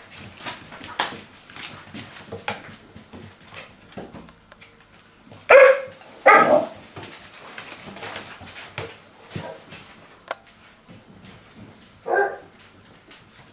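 Basset Artésien Normand puppy barking: two short yaps close together about halfway through and one more near the end, with scattered light clicks between them.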